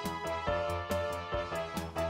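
Background music with a steady beat: bright electronic notes over a regular bass and percussion.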